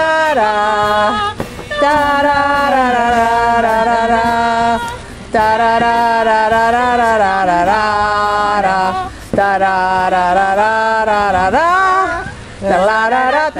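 Voices singing a slow song with long held notes, the phrases broken by short pauses.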